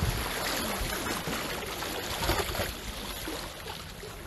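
Seawater washing and lapping at the shore, a steady rushing with a louder surge a little past two seconds in.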